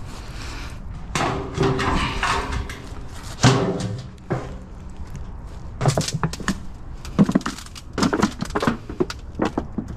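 Thin steel chimney tubes being stomped flat underfoot: an irregular run of metallic thuds and crunches, the loudest about three and a half seconds in, coming more thickly in the second half.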